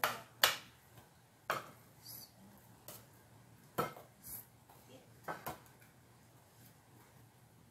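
A metal spoon scooping thick rice porridge from a metal pot onto a plate, clinking and scraping against the pot and the plate. There are about nine sharp clinks over the first five seconds or so.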